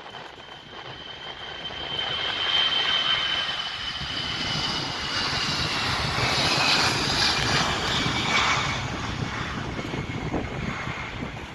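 Jet airliner's engines passing: a high whine that slowly falls in pitch over loud rushing engine noise, which swells about two seconds in and stays strong through the middle.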